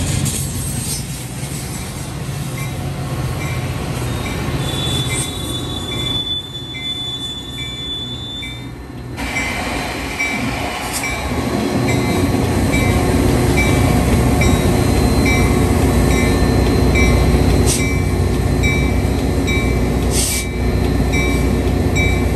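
A train approaching and rolling through, its rumble building from about ten seconds in and staying loud, with a steady high wheel squeal for a few seconds before. A short high ding repeats evenly, a little under a second apart, through most of it.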